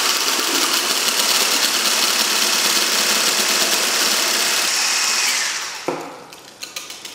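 Small electric blender running steadily, whipping chickpea liquid (aquafaba) into an emulsion while oil is slowly poured in for a vegan mayonnaise. The motor runs down about five and a half seconds in, followed by a few light clicks.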